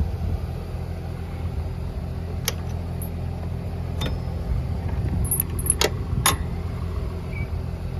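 Tractor engine idling steadily in the background, with a few sharp metallic clinks and a brief jingle about two and a half, four and six seconds in, from the potato planter's chain drive and sprockets being handled.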